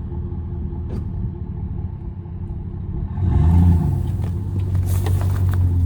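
A road vehicle's engine running with a low rumble. About three seconds in it grows louder and briefly revs up and back down, then settles into a steady hum.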